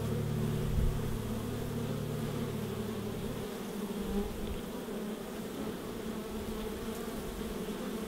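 Many honeybees buzzing in a dense, steady hum at a hive entrance. A low hum underneath fades out about three and a half seconds in.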